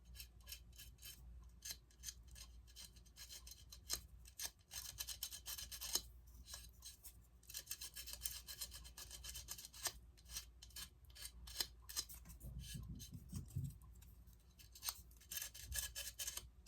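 Light hand sanding of a freshly baked polymer clay repair on a ceramic figurine's wing: faint, quick, irregular scratching strokes with a few brief pauses.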